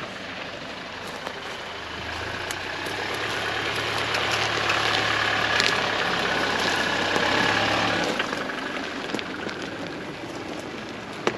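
Toyota Hilux four-wheel drive crawling past at low speed on a dirt track, its engine running steadily under light load along with tyre noise on the dirt. It grows louder as it approaches, is loudest in the middle, and fades after about eight seconds.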